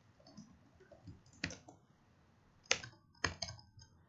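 Typing on a computer keyboard: a handful of sharp, irregularly spaced key clicks.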